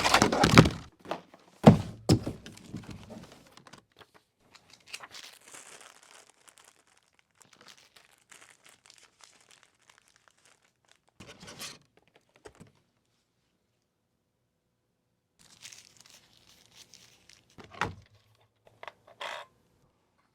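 Packaging being handled and opened: crinkling and tearing in irregular spells, with a few sharp knocks, the loudest in the first two seconds.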